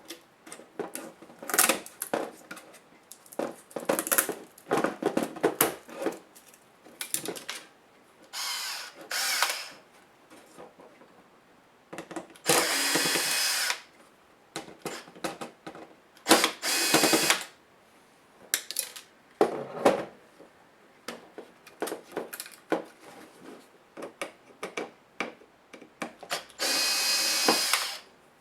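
Small electric screwdriver running in a few short runs of a second or so, driving laptop screws, with sharp clicks and rattles of small screws and plastic parts being handled between the runs.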